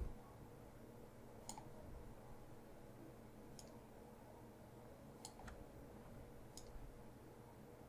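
Near silence with about five faint, sharp computer mouse clicks spread through it.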